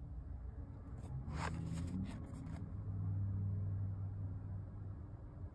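A small cardboard chocolate box handled and turned over in the hands, with a few short rustles and taps, over a low hum that swells and holds steady in the second half.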